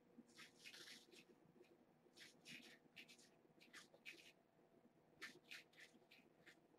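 Kittens clawing and pawing at a cloth toy on a fleece rug: faint, short scratching and rustling sounds in irregular clusters.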